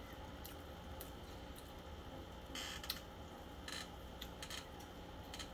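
Faint close-up chewing of crispy fried chicken wings: a few short crunches, the longest about two and a half seconds in.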